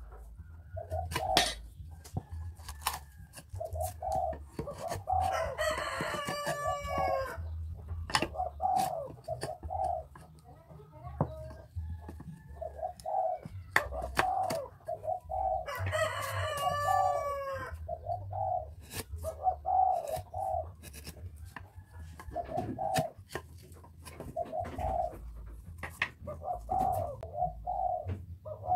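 A rooster crowing twice, about six and sixteen seconds in, over chickens clucking. Sharp knocks from hand chiselling of wood sound throughout.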